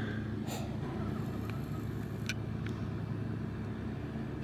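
A steady low rumble with a constant hum, like a motor running, and a few faint small clicks scattered through it.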